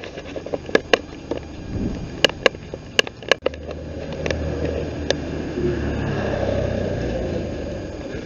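A road vehicle passing on a wet street: a steady low engine rumble that swells from about three and a half seconds in and eases off near the end. Before it come a few sharp clicks and knocks.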